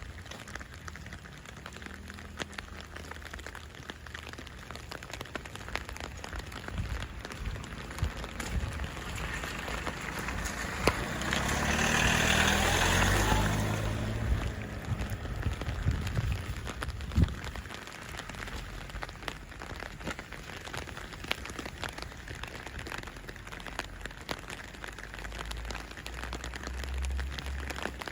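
Steady winter rain falling, with a constant hiss and many small drop ticks. Around the middle a louder, broad hiss swells up and dies away again.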